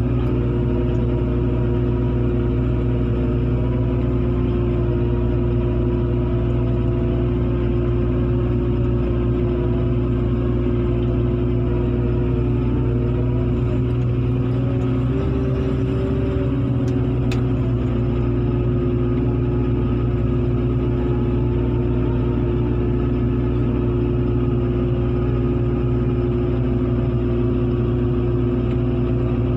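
Heavy diesel engine running steadily, with a brief slight rise in pitch about halfway through.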